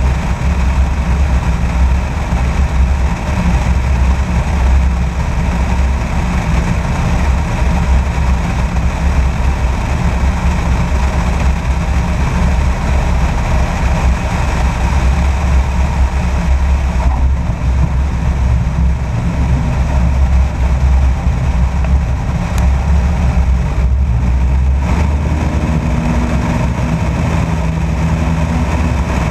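A small airplane's engine running steadily, with wind rushing past the camera mounted under the fuselage, through the low approach and onto the landing roll. Near the end the deep rumble eases and a steadier, lower engine note comes through as the plane rolls along the paved strip.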